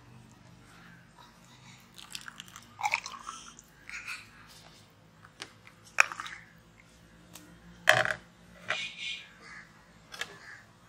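Scattered clinks and knocks of drinking glasses and a steel ladle handled over a steel tray and bowl, with sharper knocks about six and eight seconds in.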